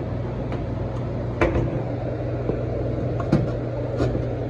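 Steady low electrical hum of running equipment, with a few sharp clicks and knocks of hard objects being handled, the loudest about a second and a half in.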